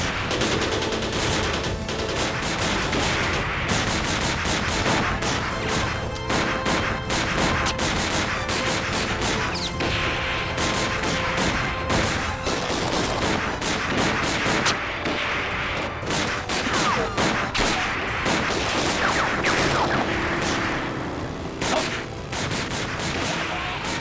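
Dense, continuous gunfire from a film battle scene: many shots in rapid, overlapping volleys. A music score runs underneath.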